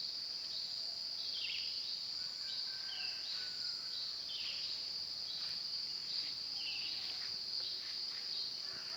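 Steady, unbroken high-pitched insect trill from small animals that sound like crickets but are not crickets. Short chirps sound over it every second or two.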